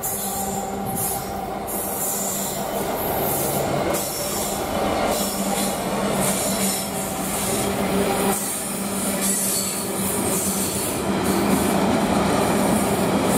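GBRf Class 66 diesel-electric locomotive passing close by at speed, its two-stroke V12 engine giving a steady low drone under loud wheel-and-rail noise, followed by a rake of loaded ballast wagons rumbling past. The noise grows louder as the train draws alongside.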